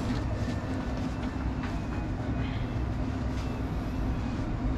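A steady low mechanical drone with a constant hum, and a few faint ticks over it.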